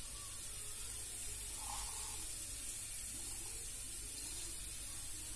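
Cumin seeds sizzling in hot oil with a steady hiss as they are tempered.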